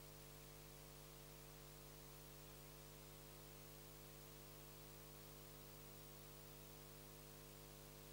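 Near silence: a faint steady electrical hum with hiss, the recording's background noise.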